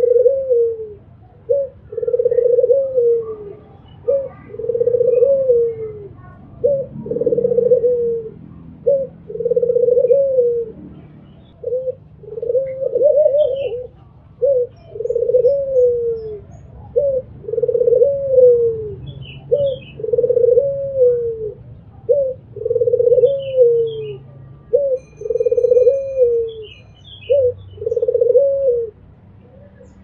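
Albino ringneck dove (puter) cooing over and over in two-part phrases, each a short note followed by a longer falling one, about every two seconds. A few faint high chirps sound in the second half.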